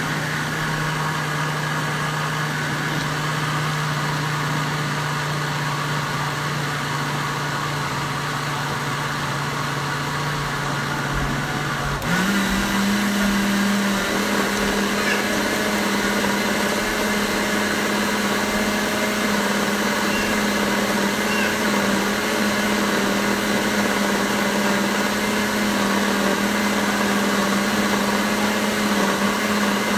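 Countertop blender motor running steadily, blending a thin pizza-dough batter. About twelve seconds in, its hum steps up to a higher pitch and gets louder.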